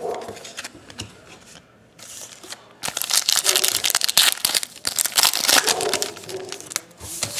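Foil wrapper of a baseball card pack crinkling and tearing as it is ripped open, a dense crackle that starts about three seconds in and lasts several seconds. Before it, a few light clicks of cards being handled.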